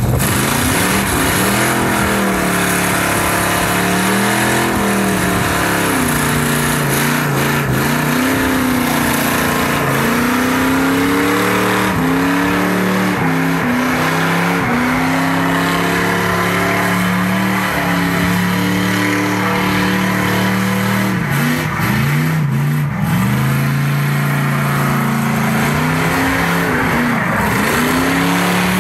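Third-generation Chevrolet Camaro doing a burnout: the engine revs up and down over and over while the rear tyres spin and squeal on concrete.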